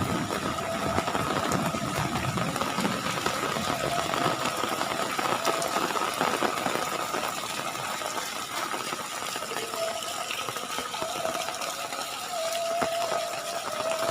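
Heavy rain pouring steadily, with a faint, steady high-pitched mechanical hum running under it.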